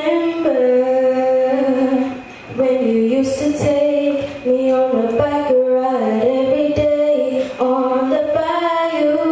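A girl singing solo into a handheld microphone: long held notes that step up and down, with a short break a little over two seconds in.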